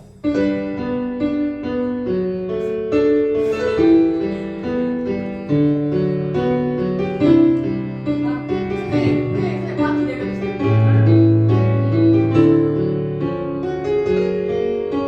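Piano playing the slow instrumental intro of a ballad: sustained chords under a melody line, starting suddenly just after the start.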